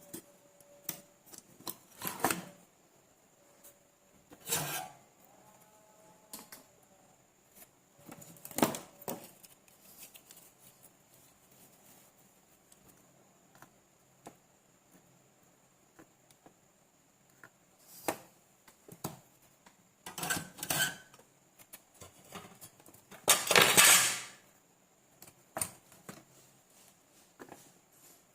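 Scattered clicks, taps and scrapes of small tools and parts being handled while a capacitor is fitted onto a battery charger's circuit board, with a longer scraping rustle about three-quarters of the way through.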